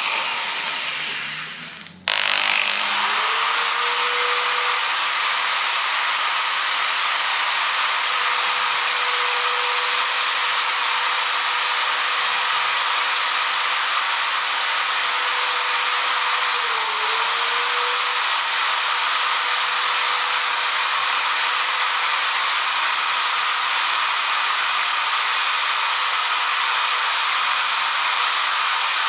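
Electric drill boring a hole into a stripped bicycle crank, to give a screwdriver grip for turning it off. The drill winds down at the start, spins up again about two seconds in and runs at a steady pitch, dips briefly under load past the middle, and winds down at the end.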